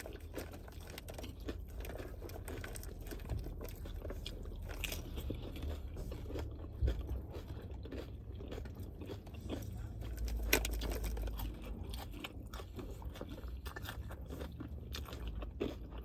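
A person chewing and crunching Doritos nacho chips close to the microphone, with many small irregular crunches.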